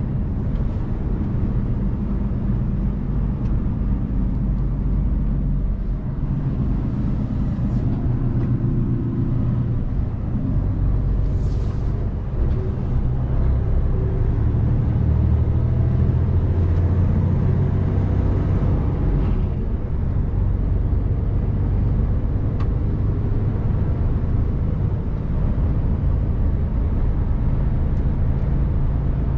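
Diesel engine of a Mercedes-Benz Actros 1851 truck running on the move, a steady low drone that swells louder for a few seconds around the middle. A short hiss comes about eleven seconds in.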